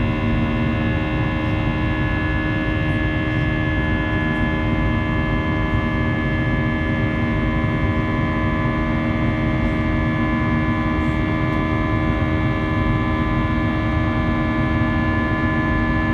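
Airbus A320 engines and rushing air heard from inside the cabin during the climb: a steady, loud drone of many whining tones over a low rumble. A low hum drops away about a second in.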